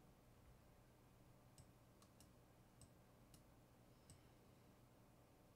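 Near silence with a handful of faint, scattered computer mouse clicks.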